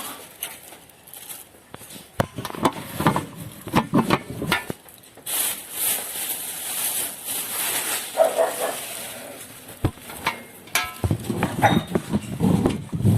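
Rustling and scattered knocks of handling, with a dog's short whine about eight seconds in.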